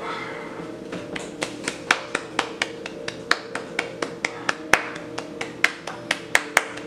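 Laptop keyboard being typed on: sharp, separate key clicks, about three or four a second at an uneven pace, over a steady low hum.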